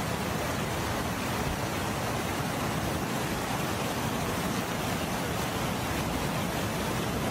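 Floodwater rushing in a steady, unbroken torrent.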